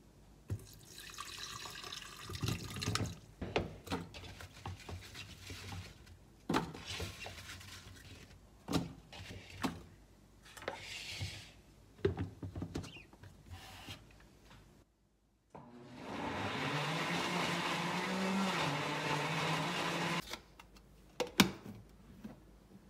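Cooled liquid poured from a pot into a countertop blender jar, then cut apple and other pieces dropped in with a string of knocks and clatters against the plastic jar. About two-thirds through, the blender runs steadily for about four seconds, puréeing the fruit into juice, and cuts off suddenly; a few sharp clicks follow near the end.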